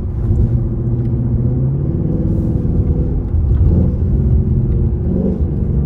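2024 Mustang GT's 5.0 L V8 running through a Borla S-Type cat-back exhaust, heard from inside the cabin while driving. The engine note changes pitch about two seconds in.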